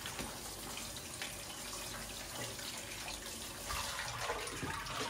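Kitchen tap running steadily onto chopped mushrooms in a plastic colander, the water splashing through into the sink as they are rinsed.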